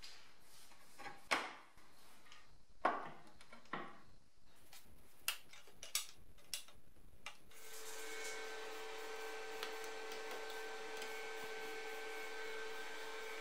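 Sheet-steel repair patch being handled against a car's inner wheel arch: scrapes, clicks and the snap of a locking welding clamp being set. About halfway a steady machine hum with hiss starts and runs on.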